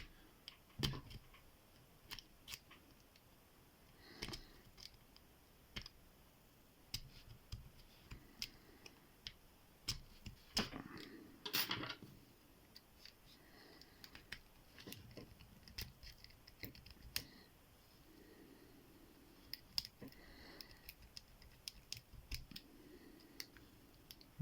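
Small lock picks raking in the keyway of a QQQ 30 mm padlock, with faint, irregular metallic clicks and short scrapes as the pins are worked. The raking attempt does not open the lock.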